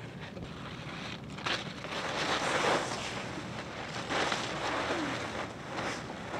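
Dry fallen leaves rustling and crunching in several bursts as a toddler scoops and throws them.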